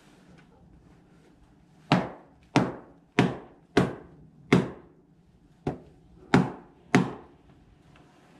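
A pair of sneakers being banged together hard, eight sharp knocks about two-thirds of a second apart, one of them weaker, to knock packed snow off the soles.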